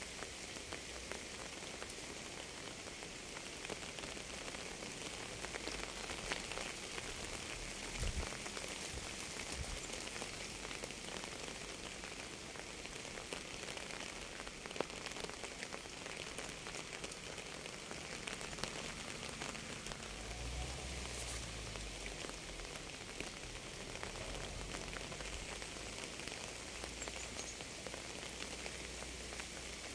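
Steady rain falling on a surface: an even hiss dotted with many separate drop ticks.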